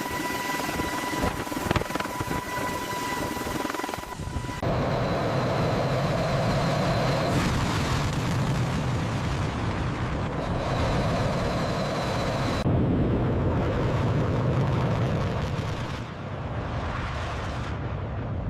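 A steady, loud mechanical rumble of engines or heavy machinery, changing abruptly several times. For the first four or so seconds a high steady whine with a few clicks sits over it.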